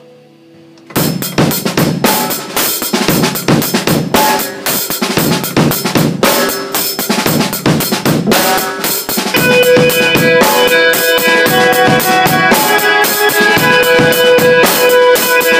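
Drum kit played with sticks, snare, bass drum and cymbals, along with a backing track. The drums come in about a second in, and from about nine seconds in the track's held notes sound clearly under them.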